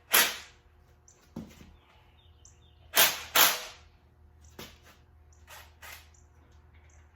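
Impact driver with a Phillips impact bit fired in short bursts against stubborn retainer screws: two loud bursts near the start and a loud pair about three seconds in, with fainter short ones after. A steady low electrical hum from a stereo runs underneath.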